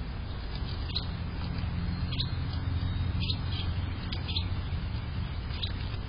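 A small bird chirping: short high chirps, roughly one a second, over a steady rushing background with a low rumble.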